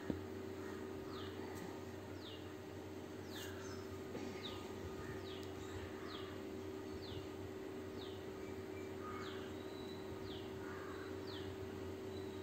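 Faint high chirps repeating evenly about every three-quarters of a second, each a short falling note, over a steady low hum. A soft knock sounds right at the start.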